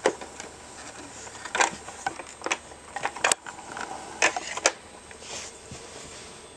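Sharp clicks and knocks of hard plastic as a child handles a toy rocket ship and works its hinged door: about six of them, irregularly spaced.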